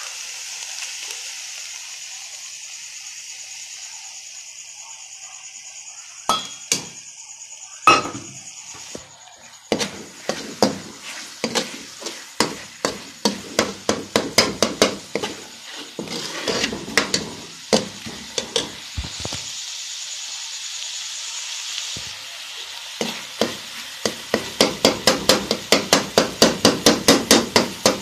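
Keema sizzling in a metal pan, then a metal spoon knocking and scraping against the pan as the mince is stirred and pressed. The knocks come scattered at first, then become rapid and regular, about four a second, near the end.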